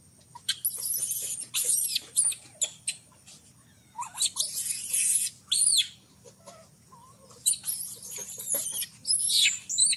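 Infant macaque screaming in repeated bouts of high-pitched, rising-and-falling squeals: the distress cry of a baby being refused the mother's milk.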